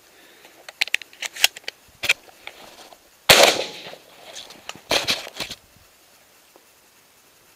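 A single shotgun shot about three seconds in, sudden and by far the loudest sound, with a short tail after it. Around it, clicks and cracks from the hunter moving the gun through the leafy hide.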